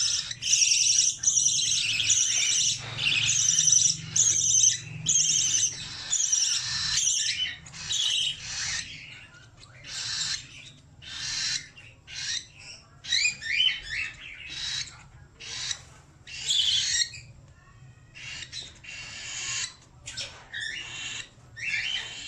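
Budgerigar calling with high, scratchy chirps, close-packed for the first several seconds and then coming singly, about one every half second to a second.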